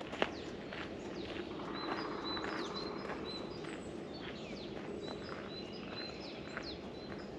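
Several songbirds chirping and singing, with many short falling chirps and a thin high note repeated over and over, above a steady low rustle of outdoor ambience. A single sharp click sounds just after the start.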